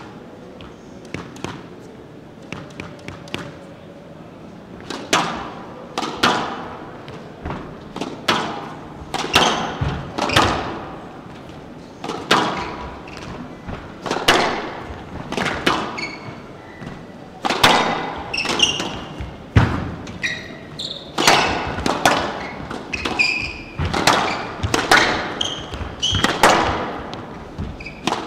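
Squash rally: the ball cracking off racquets, the front wall and the glass court walls about once a second, after a few softer ball taps in the first seconds. Short high squeaks of court shoes on the wooden floor come between the hits.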